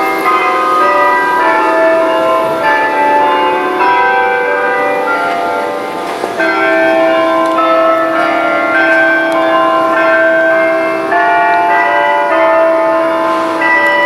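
Church bells playing a long run of bell music, note after note struck in quick succession. Each note rings on, so several tones sound together at once.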